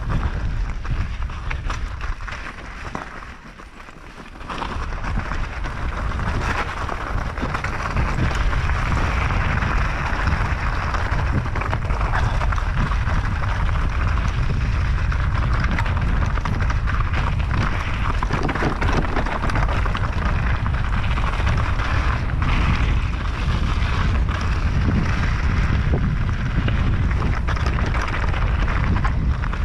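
Wind buffeting the microphone over the rattle and crunch of mountain bike tyres rolling over loose gravel and rocks. It dips briefly about three seconds in, then runs loud and steady from about seven seconds on.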